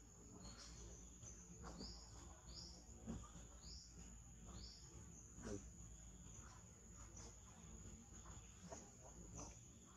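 Faint forest ambience: a steady high insect drone, with five short falling chirps about a second apart in the first half and a few soft clicks scattered through.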